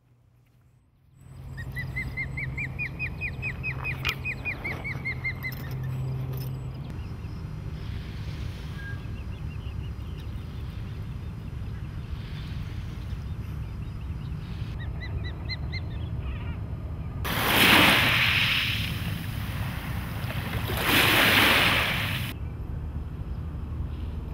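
Outdoor field ambience with birds: a fast trill of rapid notes rising and then falling in pitch a couple of seconds in, a few short chirps later, and near the end two loud rushing swells of noise, each lasting a second or two.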